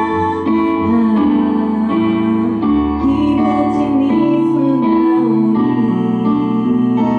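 A woman singing live into a handheld microphone over instrumental backing, holding long notes that bend and slide in pitch.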